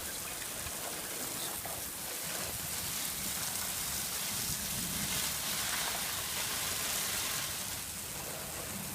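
Steady hiss of water from a garden hose spraying in the rain, a little louder from about three seconds in until near the end.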